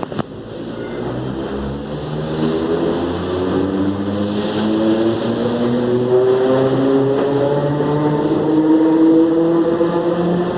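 CPTM 4400-series electric train's traction motors growling loudly as it pulls away, a whine of several tones rising steadily in pitch and growing louder as it accelerates.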